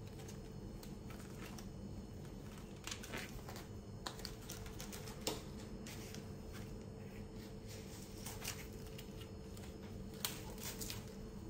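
Off-screen handling of a plastic food container: scattered short clicks and crackles of rigid plastic, over a steady low hum.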